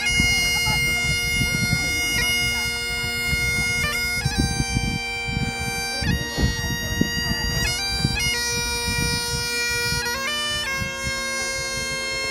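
Great Highland bagpipes played: the drones hold one steady tone while the chanter plays a slow melody, stepping from one held note to the next every second or so.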